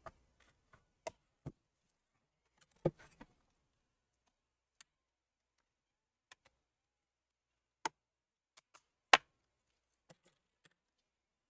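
Plastic laptop bottom cover being pried off its base with a pry tool: scattered sharp clicks and snaps as the retaining clips let go, the loudest about nine seconds in.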